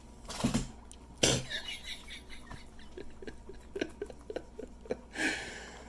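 A man's two short cough-like laughs or throat noises, then faint scattered small clicks and rustles, and a brief breathy rush near the end.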